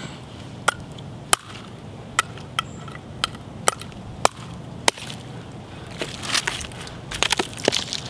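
A baby sledge tapping the steel spine of a Buck 110 folding knife's blade, about eight sharp metallic taps with a short ring, driving the edge into a chunk of cinder block. Near the end, gritty scraping and crunching of concrete as the knife is worked in the block.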